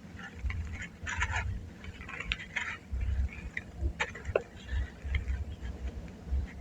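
Soft charcoal ash crunching and crumbling, in irregular crackly bursts over dull low thumps.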